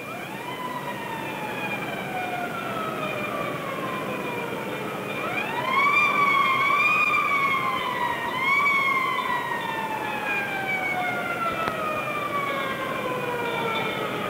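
Emergency vehicle siren sounding. It rises, falls slowly for about four seconds, rises again about five seconds in and wavers, then winds down in a long slow fall.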